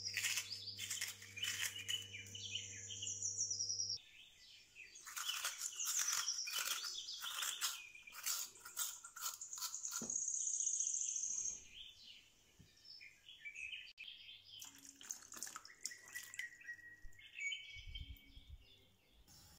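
Vegetable corer scraping and crunching into a raw peeled potato, a rapid run of short, squeaky scraping strokes that comes in several bursts.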